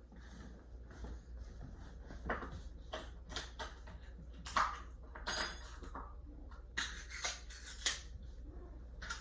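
Cats eating from their bowls: irregular crunching, chewing and small clicks of food and bowl, with a few louder clicks about halfway through and near the end.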